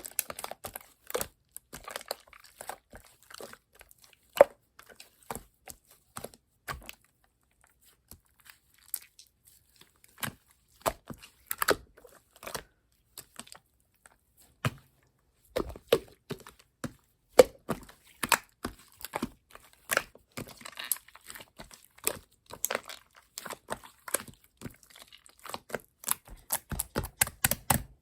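Slime being squeezed and poked by hand, giving runs of short sticky clicks and crackles with a couple of brief pauses.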